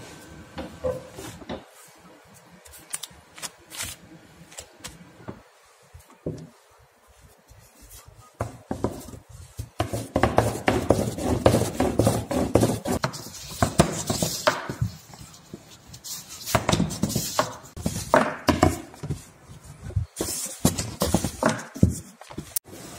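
A long, thin wooden rolling pin rolling noodle dough out on a floured tabletop, knocking and clattering against the table. Sparse knocks at first, then denser rolling from about ten seconds in, coming in bursts near the end.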